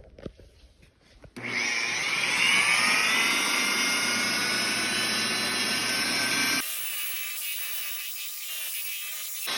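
A sharp click, then about a second and a half in an electric polisher with a wool pad starts up, its whine rising as it spins up and then running steadily as it buffs cutting compound on the paint. A few seconds before the end the sound changes abruptly to a quieter, thinner whine.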